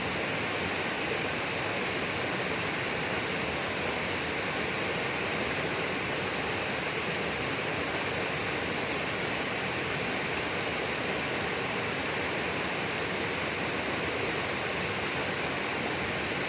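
A steady, unbroken rush of flowing water.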